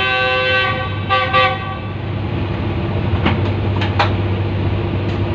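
Diesel locomotive's air horn sounding two blasts, a long one of about a second and then a short one, over the steady running of the locomotive's diesel engine. In the second half a few sharp clicks follow.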